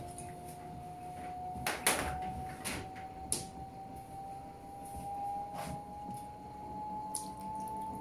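Panasonic 16 kg top-load washing machine spinning a load of towels: a steady motor whine rises slowly in pitch as the drum speeds up, over a low rumble. A few short sharp noises cut in, the loudest about two seconds in.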